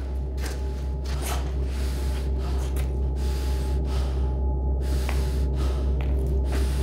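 A person breathing hard through a half-face respirator mask with filter cartridges, the breaths coming as uneven rushes of air, over a steady low drone.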